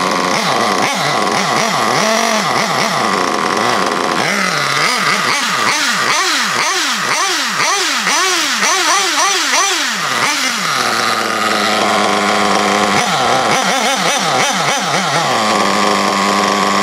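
SH .21 nitro engine in a 1/8-scale RC buggy running with the wheels off the ground, warming up. It idles at first, then is revved in a quick series of short throttle blips, each rising and falling in pitch, before settling back to a steady run.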